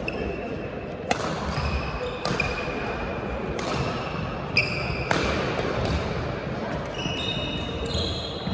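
Badminton rally: sharp racket strikes on the shuttlecock about once a second, five in quick succession, with short squeaks of shoes on the court floor between them and a run of squeaks near the end. Chatter in the hall continues underneath.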